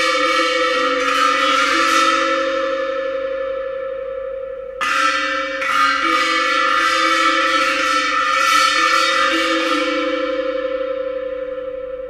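Bossed kettle gongs struck in quick flurries with mallets, ringing and slowly dying away, with a second flurry starting about five seconds in. A steady held tone sounds underneath.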